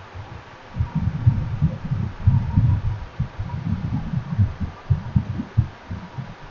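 Low, irregular thumping and rumbling that starts about a second in and keeps going in uneven pulses.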